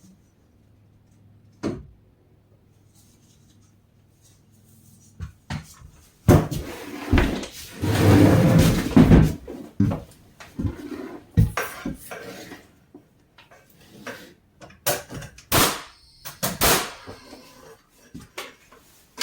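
Knocks, bumps and scraping from drywall work: a single knock early, then a dense stretch of clattering and handling noise, followed by a series of separate knocks.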